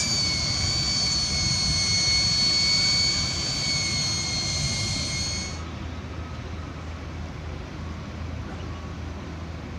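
Steady high-pitched mechanical whine over a low engine rumble, cut off abruptly about five and a half seconds in; a quieter low rumble runs on after it. This is the machinery of a busy construction site.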